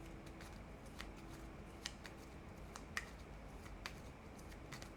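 Faint, irregular clicks and light taps of tarot cards being handled, with a faint steady hum that fades out about halfway through.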